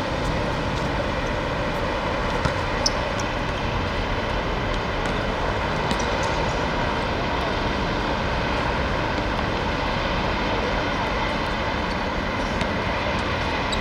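Steady outdoor rumble and hiss with no clear pitch, with a couple of brief faint knocks about two and a half to three seconds in.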